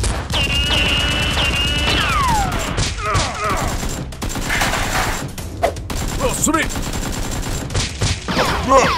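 Rapid gunfire sound effects, dense bursts of shots dubbed over toy Nerf blasters, mixed with yelling voices. A long high cry falls away in pitch about two seconds in.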